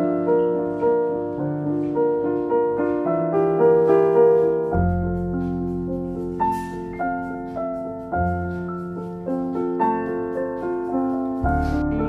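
Background piano music: a steady run of repeated, ringing notes, with deep bass notes coming in a few times.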